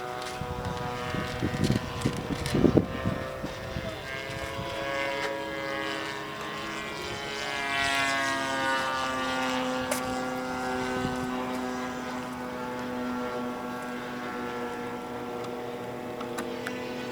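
Model airplane engine and propeller running in flight, its pitch gliding slowly up and down as the plane moves around. A few loud low bumps come about one to three seconds in.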